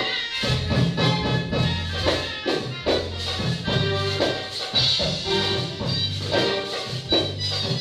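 Egyptian saidi dance music played by a band with keyboards: a steady drum beat about two strikes a second under a sustained melody.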